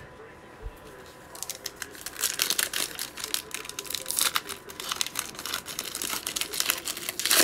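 Foil wrapper of a 2020 Panini Mosaic football card pack being torn open and crinkled by hand, with a dense run of sharp crackles starting about a second and a half in.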